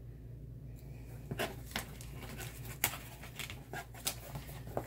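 Scattered light clicks and rustles of makeup brushes being handled and taken out of their case, over a faint steady low hum.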